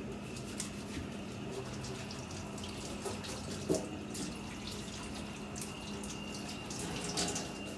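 Kitchen tap running into a stainless steel sink while leafy greens are rinsed under the stream, with one short knock about halfway through.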